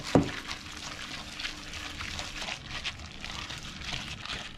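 Minced dumpling filling being kneaded by a gloved hand in a stainless steel bowl: irregular wet squelching and slapping, with a single thump right at the start.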